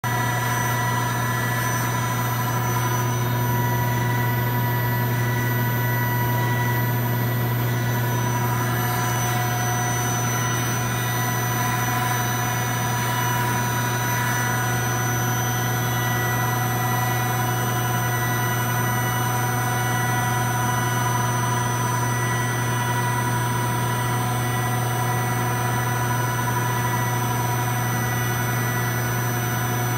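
Mori Seiki Duracenter 5 CNC vertical machining center running under power, its spindle spinning with a steady high whine over a low hum.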